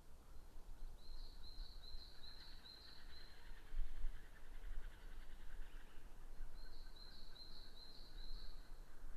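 Black woodpecker calling: two series of about six quick repeated notes, about three a second, one starting about a second in and another near the end. Low wind rumble on the microphone underneath.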